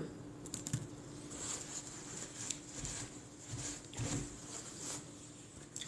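Quiet eating sounds between words: soft chewing with a few faint clicks, over a faint steady hum.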